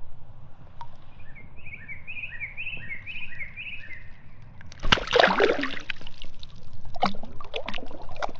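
A bird calls a quick run of about eight short chirping notes. Then, about five seconds in, water splashes and sloshes loudly, followed by scattered knocks and clicks.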